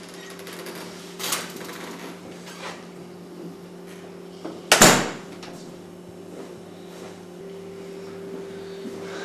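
Apartment front door being opened and then shut with a loud bang about five seconds in, over a steady low hum.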